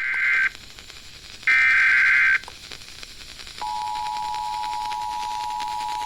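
Emergency Alert System signal: two bursts of the warbling SAME data header, the first cut short, followed about a second after the second by the steady two-tone EAS attention signal, which starts a little over three and a half seconds in. It opens a relayed tornado warning.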